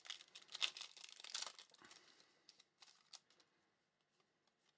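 Plastic wrapper of a trading-card pack crinkling and rustling as it is handled, for about two seconds, followed by a few light clicks and flicks of cards being handled.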